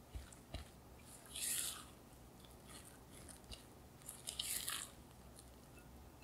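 Silicone spatula folding stiff, floury muffin batter against the side of a glass bowl: two crackly, swishing strokes, about one and a half and four and a half seconds in, with a few faint taps between them. The flour is being folded into the creamed butter, sugar and egg.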